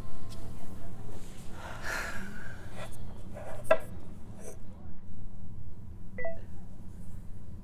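A person's soft breaths over a low steady hum, with a short electronic beep about six seconds in.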